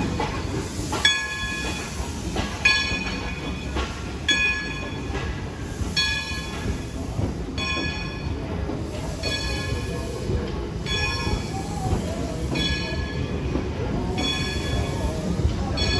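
Steam locomotive bell ringing in a steady rhythm, about one stroke every second and a half, over the low rumble of the train.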